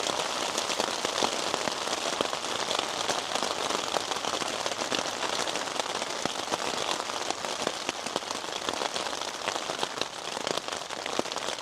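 Steady rain hitting the roof of a shelter, heard from inside: a dense, even hiss made of many small drop hits.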